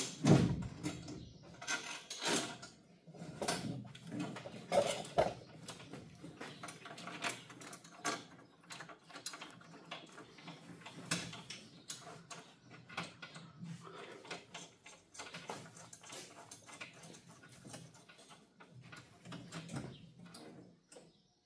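Irregular clicks, taps and metal clinks of hand tools and screws as a pilot seat is bolted to its mounting frame. A few louder knocks come in the first five seconds.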